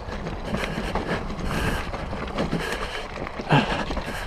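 Mountain bike riding down a rough dirt trail: tyres rolling over dirt and rocks and the bike rattling, with wind noise on the microphone. A short vocal sound falling in pitch comes about three and a half seconds in, most likely the rider.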